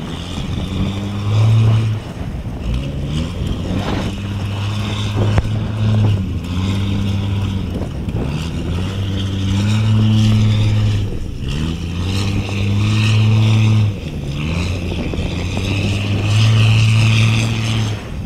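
Boat engine running, its speed rising and easing back again every few seconds, over a steady hiss.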